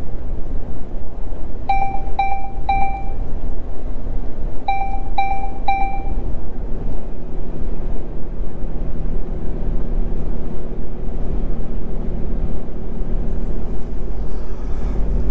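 Cab interior of a Renault truck on the move: steady engine and road rumble. Early on come two sets of three short electronic beeps, a few seconds apart, and in the second half a low engine hum stands out more clearly.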